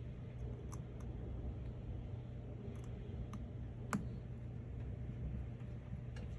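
Small, sharp clicks and taps of hand tools and phone parts being handled during a screen repair, a few scattered light ones and one louder click about four seconds in, over a steady low hum.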